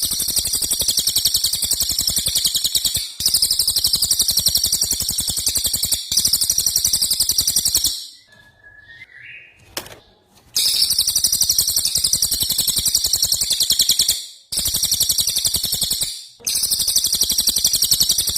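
A songbird singing long, very fast rattling trills, the "rol tembak" (rolling shot) phrases used as masteran training song. The trills are high-pitched and last a few seconds each, with short breaks and one longer pause about halfway through.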